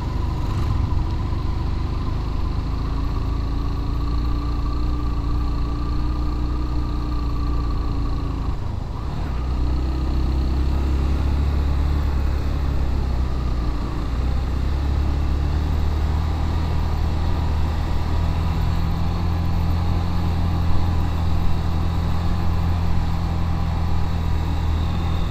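Motorcycle engine running steadily under load, straining up a steep climb. About nine seconds in the engine note dips briefly and comes back at a different pitch.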